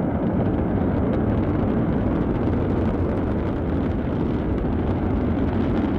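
Antares rocket failing just after liftoff and exploding, heard as a steady, deep roar with no separate bangs.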